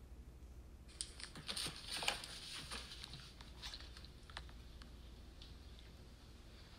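Light clicks and taps of fingers handling a smartphone and its case, bunched over a few seconds and loudest about two seconds in, then fading to a faint hum.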